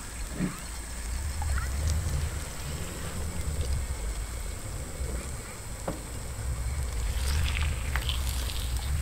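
Steady low wind rumble on the microphone, with faint clicks and, near the end, a patch of light crackling as a marinated basa fillet is laid into a hot frying pan.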